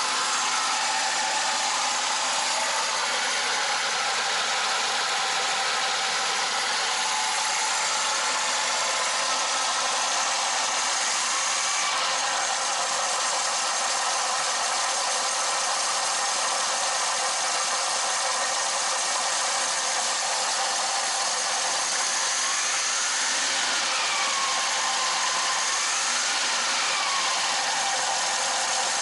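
Ford Transit MK1 petrol engine idling steadily, freshly restarted after a carburettor rebuild and warming up before being revved.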